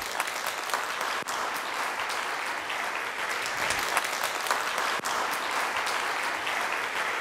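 Audience applauding after a talk, a dense and steady clapping.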